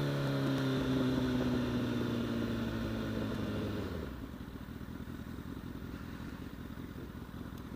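Honda CBR1000RR's inline-four engine running with a steady note whose revs sink slowly for about four seconds, then falling away to a quieter low rumble.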